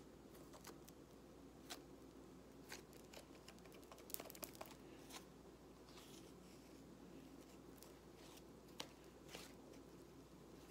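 Thick yellow slime being squeezed and stretched by hand, giving faint, scattered clicks and crackles, thickest about four seconds in.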